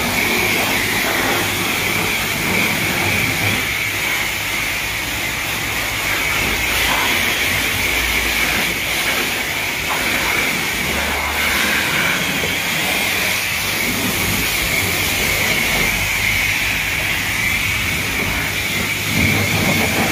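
High-pressure car-wash wand spraying a jet of water onto a car's wheels and body panels: a steady hiss of spray.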